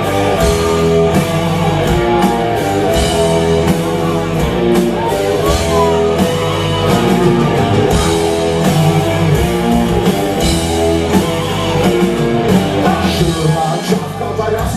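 Live rock band playing an instrumental passage between verses: electric guitars and bass holding sustained chords over a steady drum kit beat.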